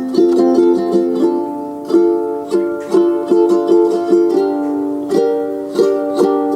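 Instrumental music played on a plucked string instrument: picked notes and chords at an even pace, each note dying away after it is struck.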